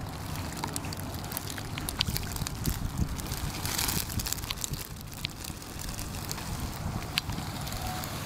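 Wind buffeting the microphone, a steady low rumble, with scattered light taps and a brief rustling rush about four seconds in.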